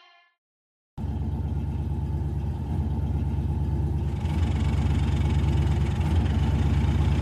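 A steady low engine rumble, as of a car engine idling, starts about a second in after a moment of silence and grows a little louder about four seconds in.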